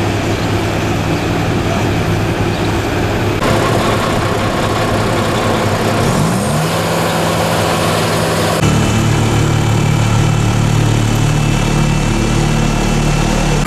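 Diesel engines of asphalt-paving machinery (dump truck, asphalt paver and tandem roller) running steadily and loud. One engine's pitch rises about six seconds in, and the mix of engines changes abruptly twice.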